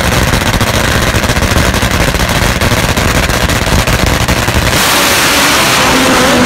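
Drag-racing motorcycle engine running with a loud, rapid crackle from its open exhaust. About four and a half seconds in it turns steadier and a little louder, rising in pitch near the end, as the bike does a burnout.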